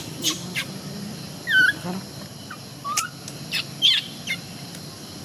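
Baby monkey's short, high-pitched squeaks and chirps, repeated every half second or so, with a few wavering calls, as it writhes on its back in a fit of distress.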